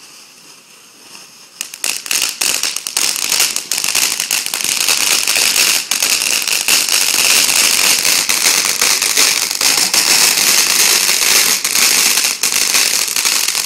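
Ground fireworks going off: after a quiet second and a half, a dense crackle of many rapid small pops over a hiss starts suddenly and keeps on loudly.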